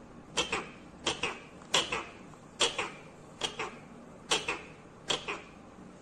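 Rose-ringed parakeet biting and crunching into a piece of fruit with its beak: short sharp crunches, often in quick pairs, about one bite every three-quarters of a second.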